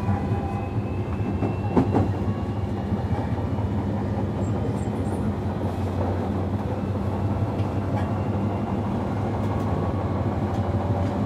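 JR Kyushu 305 series electric train running, heard from inside the motor car MoHa 305-101: a steady rumble of wheels on rail with a faint whine from the traction motors rising slowly in pitch. Two rail-joint clicks come about two seconds in.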